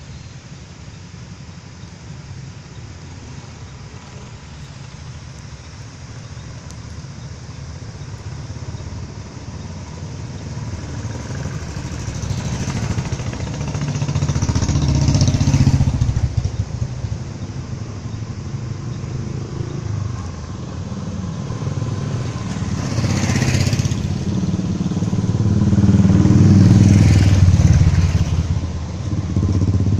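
Royal Enfield Bullet motorcycles with single-cylinder engines riding past one after another. The engine sound swells as each bike draws near and passes, loudest about halfway through and again near the end.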